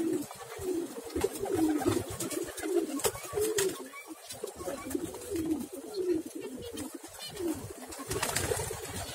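A flock of domestic pigeons cooing together, many low overlapping coos running on without a break, with scattered sharp clicks among them.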